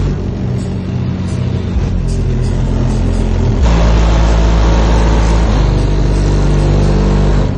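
Bass-heavy music played loud through a custom car-audio speaker box in an 8th-generation Honda Civic, the deep bass notes held and changing every couple of seconds. The bass gets heavier about halfway through.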